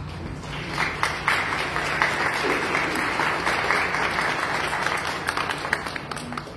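Audience applauding. The clapping swells about a second in and tapers off near the end.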